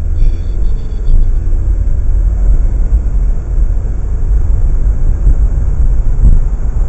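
Car accelerating away from a stop, heard from inside the cabin: a deep engine and road rumble that builds as it gathers speed.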